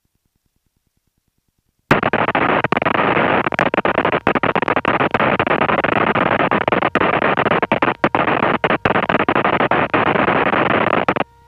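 Aircraft radio static heard through the cockpit audio feed: a loud hiss cuts in abruptly about two seconds in, breaks up with many brief dropouts, and cuts off near the end with a short tone.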